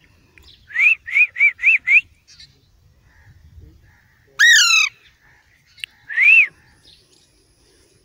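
Young Alexandrine parakeet calling: a quick run of five short rising-and-falling squawks, then a single longer squawk, then one more short squawk.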